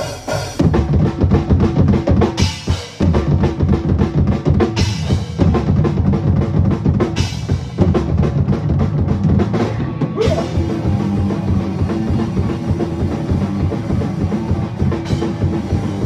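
Mexican ska-core band playing an instrumental passage. A drum kit drives a fast beat on bass drum and snare under amplified electric guitar. After a few scattered hits, the full band comes in about half a second in.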